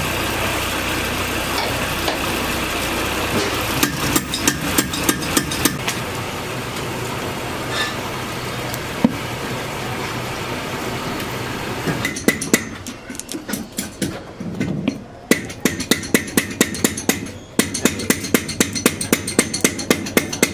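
Steady workshop machine noise, then rapid hammering that starts about halfway through and settles into nearly three sharp blows a second.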